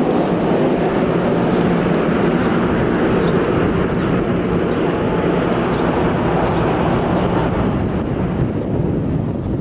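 Loud, steady roar of engines, easing slightly near the end.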